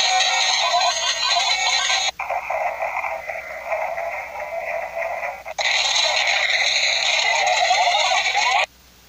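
Harsh, heavily filtered and distorted audio from a video-editing effect. Its tone switches abruptly twice, thinning about 2 seconds in and widening again about 5.5 seconds in, then it cuts off sharply just before the end.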